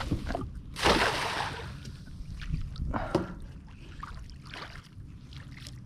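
A cast net with a weighted lead line lands on the water with a splash about a second in, followed by a second, smaller splash and softer water sounds as it sinks.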